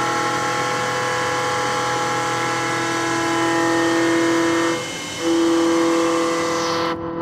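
CNC machine running with a steady, multi-toned whine that briefly drops out about five seconds in and then comes back.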